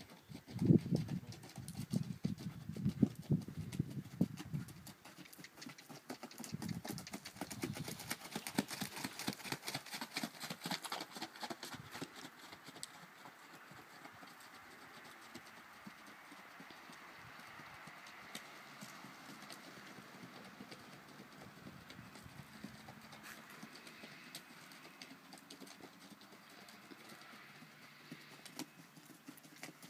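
Hoofbeats of an Icelandic horse on a dirt track, loudest in the first few seconds, then fading to faint as the horse moves away.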